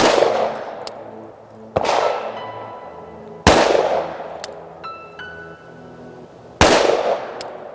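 Four shots from a 10 mm semi-automatic pistol, fired at an uneven pace with pauses of about two to three seconds between them, each crack followed by a long echo. Light background music plays underneath.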